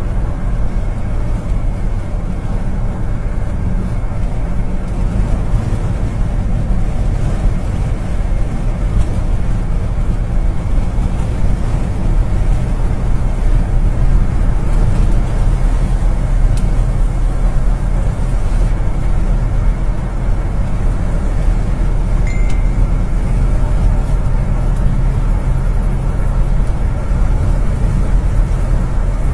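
Steady road and engine noise heard from inside a moving car's cabin, with a short high tone about three-quarters of the way through.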